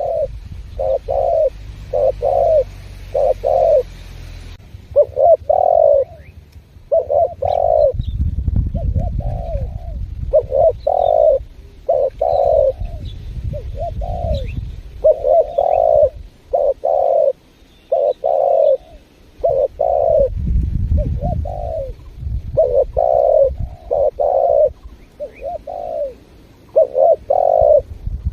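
Spotted doves (tekukur) cooing over and over, a long run of short, low coo notes in quick succession. A low rumble sits under the calls, and a few faint high chirps from small birds come through.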